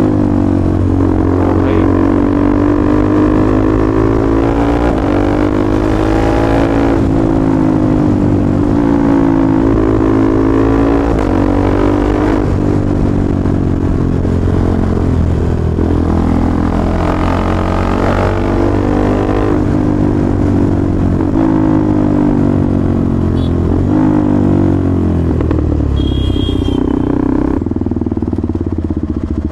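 The single-cylinder engine of a third-generation KTM 390 Duke running under way, its revs rising and falling over and over through the gears. Near the end it eases off as the bike slows down.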